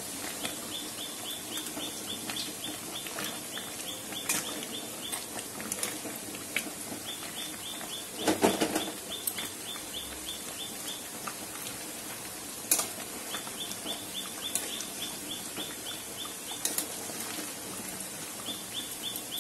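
A metal spoon stirring chicken curry in a steel pan, knocking against the pan a few times (loudest about eight seconds in), over the bubbling of the gravy at the boil. Behind it a bird calls in several runs of quick, short, high chirps.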